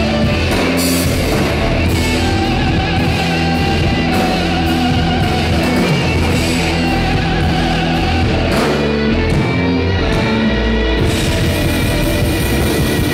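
Live rock band playing loudly: electric guitars, bass guitar and drum kit together, the level steady throughout.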